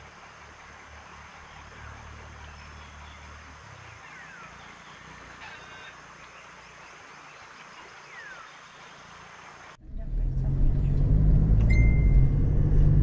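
Quiet outdoor ambience with a few short chirps. About ten seconds in it cuts suddenly to the steady low rumble of a car driving, engine and tyre noise heard from inside the cabin, which is the loudest part.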